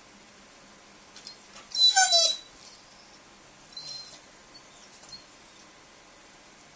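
Dog whining to beg for treats: one loud high-pitched whine that drops in pitch about two seconds in, then a fainter, shorter whine a couple of seconds later.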